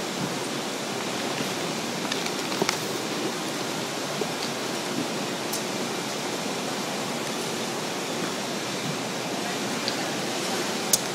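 Steady rushing noise of workshop machinery running, broken by a few sharp clicks, the loudest near the end.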